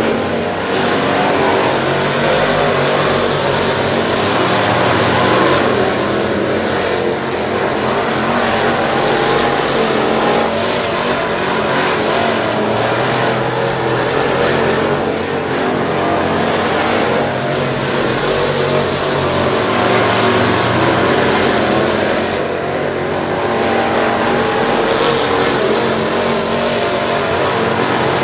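A field of dirt late model race cars with crate V8 engines running laps at speed. The engines rise and fall every few seconds as cars sweep past.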